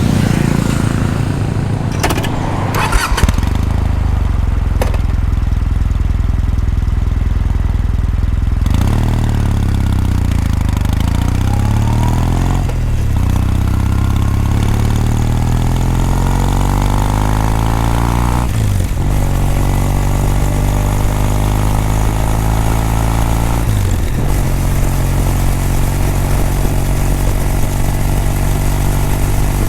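Kawasaki W800 air-cooled parallel-twin running through its exhaust: it idles for several seconds with a few sharp clicks, then pulls away, the revs rising and dipping with about three upshifts before settling to a steady cruise.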